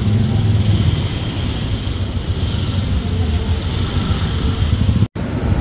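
Street traffic noise: cars and motorcycles running close by, a steady low rumble. The sound cuts out for an instant about five seconds in.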